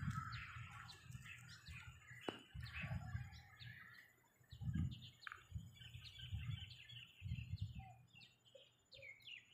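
Small birds chirping, many short overlapping chirps and tweets throughout, with intermittent low rumbles underneath.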